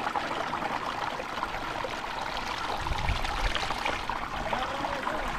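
Mountain river running over a stony bed: a steady, even rush of flowing water.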